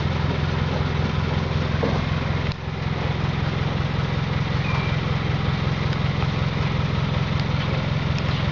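Truck engine idling steadily, a low even hum, with a brief drop-out about two and a half seconds in.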